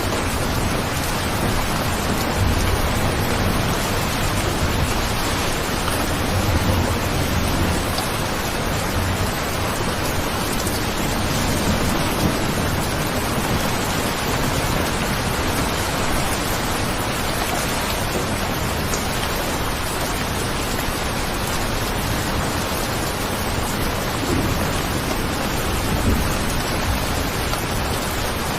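Steady rain falling, a dense even hiss, with a few brief low rumbles now and then.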